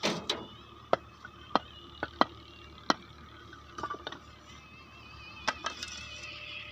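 Sharp knocks of hand tools on hard roofing material, about ten at irregular intervals, with a quick pair just after two seconds in and another pair about a second before the end.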